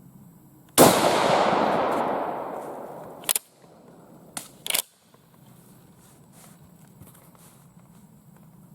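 A single shot from a Swiss K31 rifle in 7.5 Swiss, its report rolling away over about two seconds. A couple of seconds later come three sharp metallic clacks, the straight-pull bolt being drawn back and pushed home to chamber the next round.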